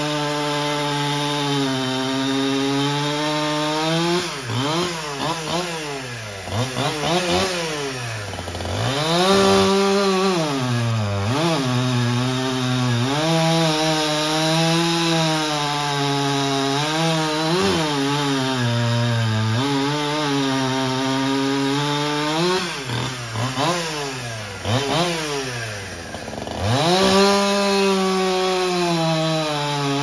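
Two-stroke chainsaw cutting through firewood at high revs. The engine note holds steady through the cuts, and several times the throttle is let off, the revs fall to a low note and then climb back up for the next cut.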